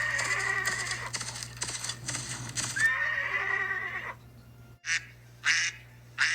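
A horse whinnying twice, a long whinny and then a shorter one, with light tapping behind them. About a second later come three short, sharp bursts, spaced about half a second to a second apart.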